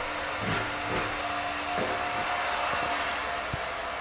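Steady whirring, blowing hum of an electric power tool, with a few light knocks and taps.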